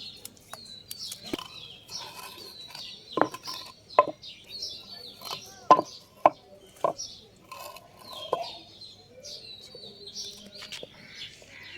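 Small birds chirping continually, with about six short, loud sharp sounds between about three and eight and a half seconds in.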